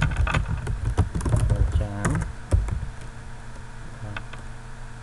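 Typing on a computer keyboard: quick keystrokes for the first two and a half seconds, then only a few scattered keys.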